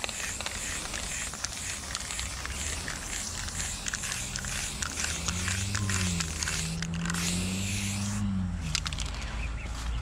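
Aerosol spray-paint can hissing as white paint goes onto a concrete wall in long strokes, with short breaks in the second half. A low, wavering hum sounds for a few seconds past the middle.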